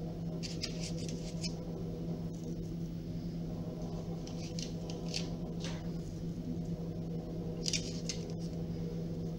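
Soft scuffs and light taps of raw dough circles being picked off a marble worktop and laid on a parchment-lined baking tray, in several small bursts over a steady low hum.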